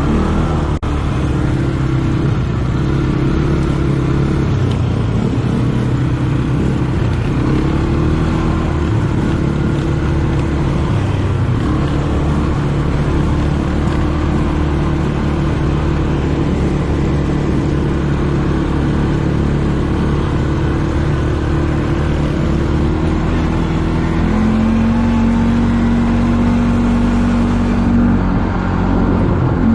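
ATV engine running steadily under way, its pitch shifting a little up and down with the throttle.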